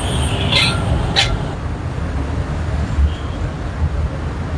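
Steady low rumble of road traffic, with two short hissy sounds about half a second and a second in.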